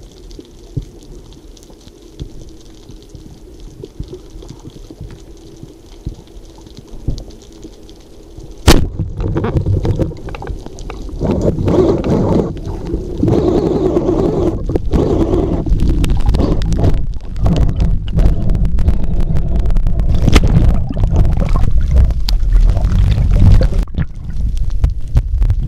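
A wooden speargun fires underwater about nine seconds in: a single sharp crack. After it comes loud, churning water noise as the diver swims up with the speared fish.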